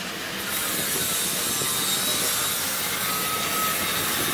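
Steady rushing hiss of riding along a street in a bicycle-type tricycle taxi: wind on the microphone and wheels on the road. It sets in about half a second in and holds even.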